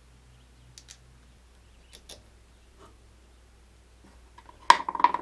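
Hand tools working on a mower's starter solenoid terminals: a few faint metal clicks, then a louder burst of rapid clicking with a brief metallic ring near the end.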